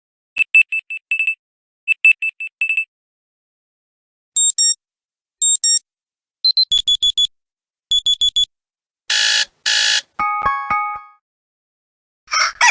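Android 4.0 Ice Cream Sandwich phone alert tones played one after another, separated by short silences. First come two bursts of quick high beeps, then short double tones and rapid beep runs, and a few falling chime notes about ten seconds in.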